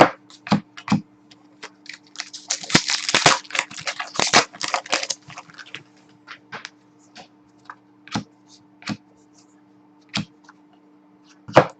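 Trading cards being handled and sorted at a table: a string of light clicks and taps, with a denser run of rustling and clicking about two to five seconds in.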